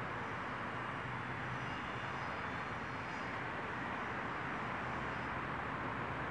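Steady, even roar of distant city noise heard from high above, with no rise or fall.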